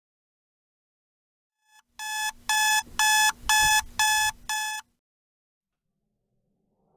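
Electronic alarm beeping, six short pitched beeps at about two a second, which stop suddenly as it is switched off.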